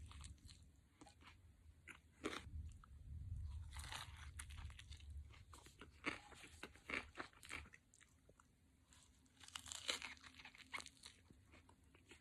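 Faint chewing and crunching as someone eats a sub sandwich filled with raw vegetables and pickles: irregular crunchy bites with short pauses, including a quiet spell about two-thirds of the way through.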